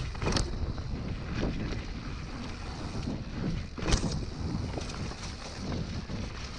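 Mountain bike rolling down a rough trail, with wind rushing over the action camera's microphone and a steady rumble of tyres and rattling bike. Two sharp knocks stand out, about half a second in and about four seconds in, the second the loudest.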